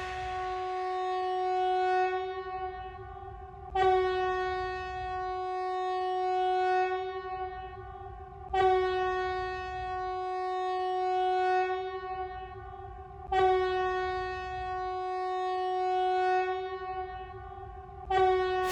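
Emergency alert tone: one steady note rich in overtones, held for about four seconds and started over roughly every five seconds, each repeat opening louder and easing off.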